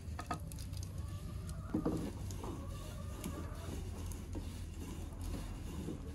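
Small clicks and crackles of a wood fire under a saj griddle, then a long wooden rolling pin rolling dough thin on a wooden board.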